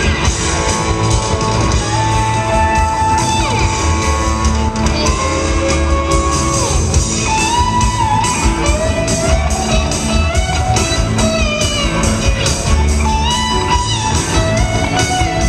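Live rock band playing an instrumental passage: a lead electric guitar plays held, bending and sliding notes over bass, keyboards and a steady drumbeat. The sound is heard from the audience in a large hall.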